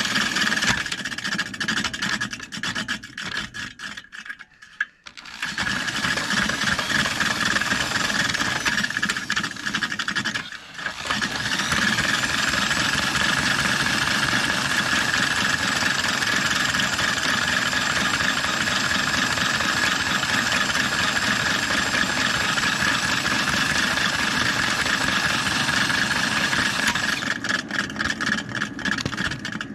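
Electric drill spinning a 1950s National Mower Company reel mower's cutting reel backwards against the bed knife, the blades grinding through valve grinding compound as the reel is back-lapped sharp. The drill stops twice briefly, about four seconds in and again near eleven seconds, then runs steadily before turning choppier near the end.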